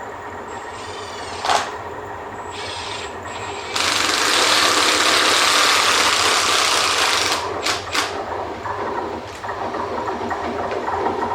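GBRF Class 73 locomotives working a snow and ice treatment train: a steady low running sound with brief high squeals in the first few seconds, then a loud hiss lasting about three seconds, a couple of sharp clanks, and a busier, rhythmic running sound building near the end.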